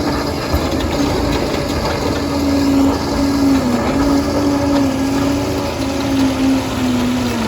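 Liebherr 746 crawler dozer running and working, with a steady whine over the machine noise that dips in pitch a couple of times, and the tracks clattering.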